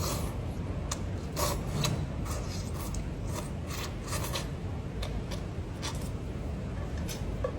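Irregular short clicks and scrapes of someone eating fish head with chopsticks from a bowl, over a steady low background noise.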